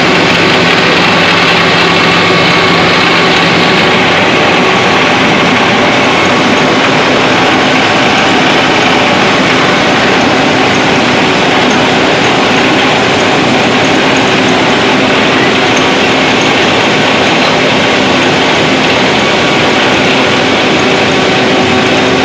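Small rice mill plant running: electric motors and milling machines give a loud, steady mechanical drone with a low hum.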